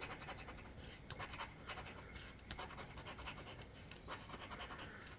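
Faint, rapid scratching of a lottery scratch-off ticket, its latex coating scraped off in quick short strokes.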